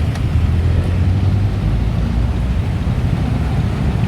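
Steady low rumble of city road traffic, heard from a bicycle riding in among it.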